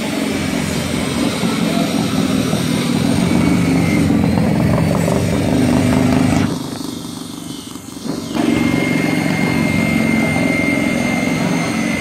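A motor running steadily, dropping in level for about two seconds in the middle before coming back, with a thin high whine over it in the second half.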